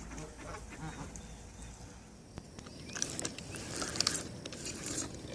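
Geese calling softly, then from about three seconds in water splashing.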